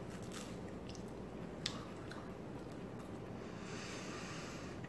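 Faint mouth sounds of someone chewing a tomato and cheese sandwich, with a small sharp click about a second and a half in.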